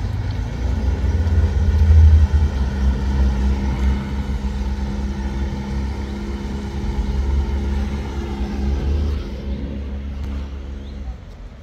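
Outboard motor on a long wooden river boat running steadily as it passes close by, loudest about two seconds in and fading out near the end.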